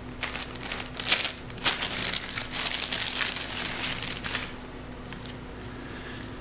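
Packaging crinkling and rustling as a camcorder is unwrapped from its box: a run of crackles that dies away about four and a half seconds in.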